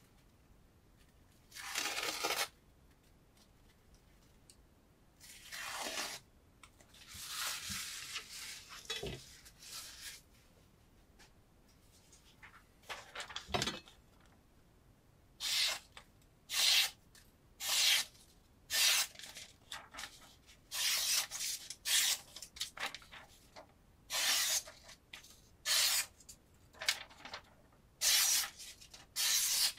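Kitchen knife blade slicing freehand through paper towel and then a sheet of paper, each cut a short papery hiss, with some tearing of the towel early on. From about halfway the cuts come quickly, roughly one a second, as the blade is drawn through the paper in a sharpness test.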